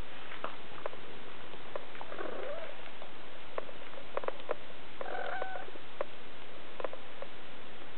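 Three-week-old Siberian kittens giving two short, high mews, one about two seconds in and one about five seconds in, with scattered small clicks and rustles as they squirm against their mother.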